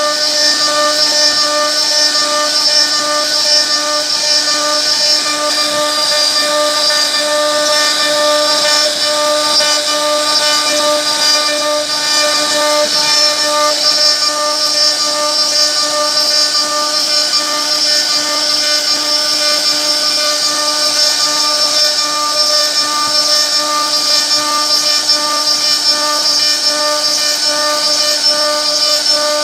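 CNC router spindle running at a steady pitch, with a constant whine and a hiss of cutting, while it carves a wooden board.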